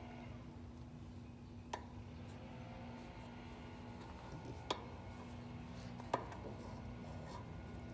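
Three sharp metallic clicks, a few seconds apart, as a hand tool knocks against copper refrigerant line at an air-conditioner condenser's service valves, over a steady low hum.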